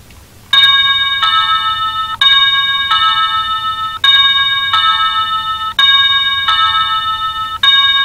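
Wireless doorbell chime ringing a two-note electronic ding-dong over and over. It starts about half a second in and restarts about every two seconds, each ring cut short by the next. The doorbell is being triggered non-stop by a software-defined radio sending its 315 MHz code on repeat.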